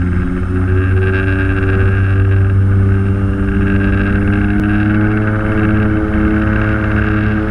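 Twin Otter's two Pratt & Whitney PT6A-27 turboprops at high power on the takeoff roll, heard from inside the cockpit: a loud, steady propeller drone with several pitched tones, a few of them rising slowly as the aircraft accelerates.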